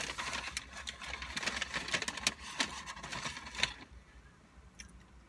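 Rapid crackling and rustling of fast-food paper packaging being handled, which stops about three and a half seconds in.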